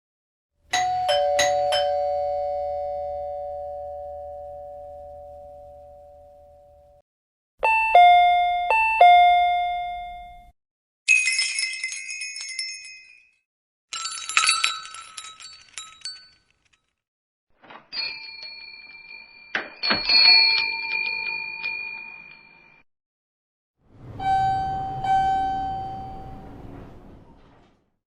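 A string of separate bell and chime sound effects. A two-note chime rings out and fades over several seconds, then comes a two-note ping struck twice, several ding-dong doorbell chimes, and near the end a jingling door bell.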